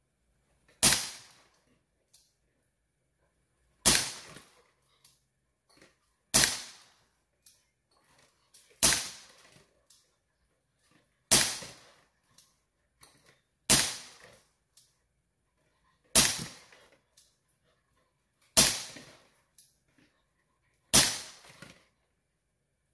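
Daisy CO2 BB pistol firing nine single shots, one about every two and a half seconds. Each is a sharp pop with a short tail, with faint small ticks between shots.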